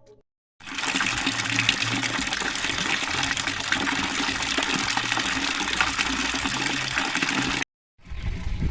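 Water gushing steadily, as when a container is being filled for washing, cutting off abruptly near the end.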